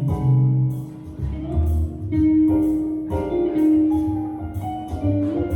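Live instrumental band music: a held, wind-like melody line over a moving bass line, with drum hits.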